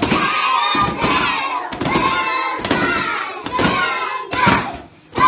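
A class of young children shouting together in unison, loud phrase after phrase about once a second, with a short pause near the end.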